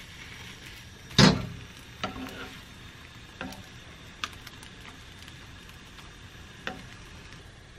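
Pikelets frying in melted butter in a non-stick frying pan, a faint steady sizzle, with a sharp clatter of a utensil against the pan about a second in and a few lighter clicks after.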